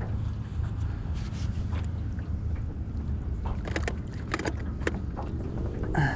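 A small boat motor, most likely an electric trolling motor, humming steadily as the john boat is moved back a short way. Scattered light clicks and knocks sound over it, clustered in the second half.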